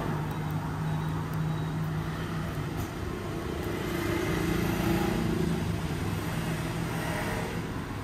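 Steady low hum of a motor vehicle engine running in the background, its pitch shifting slightly upward about four seconds in.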